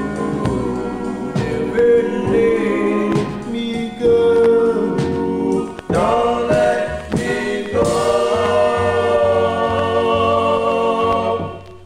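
Vocal group singing in close harmony with a backing band on a 45 rpm single, the drums striking through. It closes on one long held chord that stops shortly before the end.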